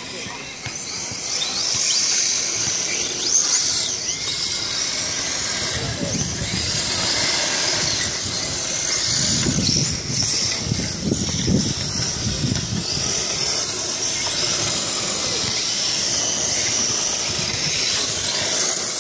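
Electric RC drift cars sliding on a smooth paved floor: hard tyres hissing and scraping while the high whine of their motors rises and falls.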